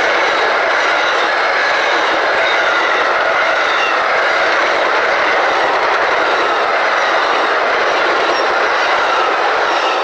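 Amtrak passenger cars passing close at speed: a loud, steady rush and clatter of steel wheels on rail with a faint high whine over it, easing off as the last car clears at the very end.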